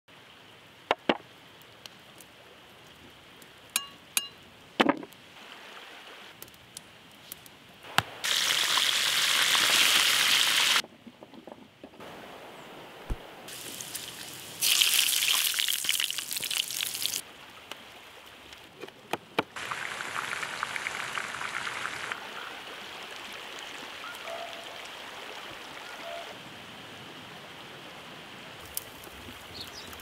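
A few sharp knocks and clinks, then loud stretches of hissing, bubbling noise, one of them from a pot of water at a hard boil.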